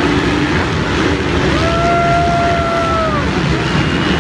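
A pack of motocross bikes racing by, many engines running hard at once. About one and a half seconds in, one engine holds a steady high note for nearly two seconds, then drops off.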